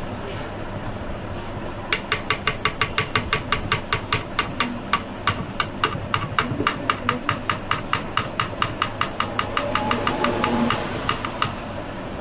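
A metal spoon tapping quickly and evenly against a plastic blender jar, about five light ringing clicks a second for roughly nine seconds, as malai cream is knocked off it into the jar. A steady low hum runs underneath.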